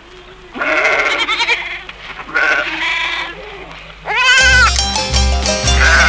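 Livestock bleating: a few drawn-out, wavering calls. Then, about four and a half seconds in, a band's folk music comes in with a steady bass pulse.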